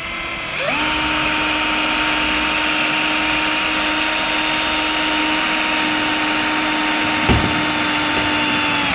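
BullDozer 20 V cordless drill-driver running at full speed, drilling into iron: a steady, high motor whine that starts about half a second in, holds its pitch for about eight seconds with one sharp click near the end, then stops.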